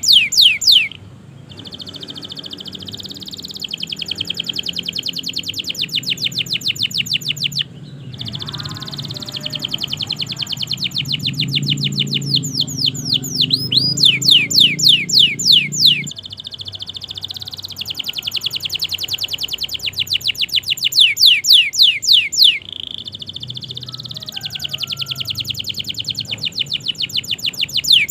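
Domestic canary singing a long song. Each phrase is a fast trill of one note sweep repeated many times a second, and the bird moves to a new trill every few seconds.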